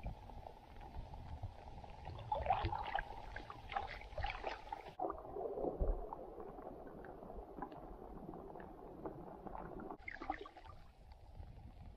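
Canoe paddle strokes dipping and splashing, with water gurgling.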